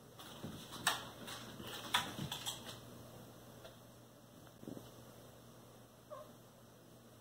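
Scattered light clicks and knocks from cats moving about on a hardwood floor around their food bowls, most of them in the first three seconds. A short faint squeak comes about six seconds in.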